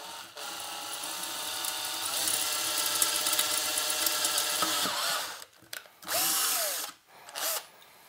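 Power drill boring through the amplifier's sheet-metal chassis with the finishing bit, opening up a pilot hole under light pressure: a steady motor whine with cutting noise for about five seconds, then it stops. Two short bursts of sound follow near the end.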